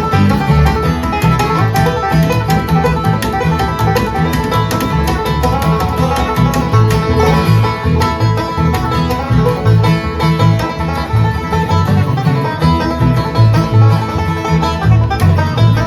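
Live bluegrass played on banjo and guitar: a fast, busy plucked instrumental over a steady pulsing low note line, with no singing.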